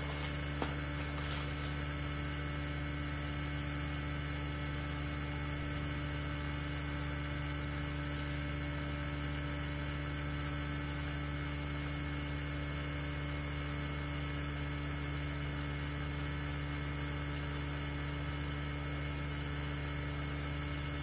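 Steady low electrical hum with an even hiss above it, unchanging.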